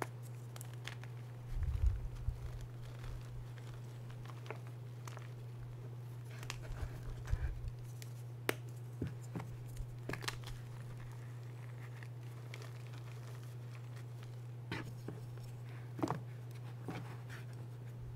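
Hands crushing and crumbling blocks of reformed gym chalk, with scattered short crunches and cracks and a heavier thump about two seconds in. A steady low hum runs underneath.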